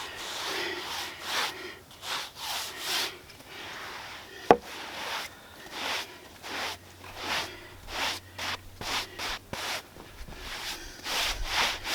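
Broom sweeping sawdust off a freshly chainsaw-milled wood slab, in a run of irregular brisk strokes, with one sharp knock near the middle.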